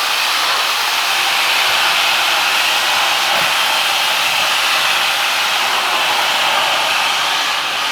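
Hot-water extraction tool rinsing a tile floor: a steady hiss of pressurised spray and vacuum suction, unchanging throughout.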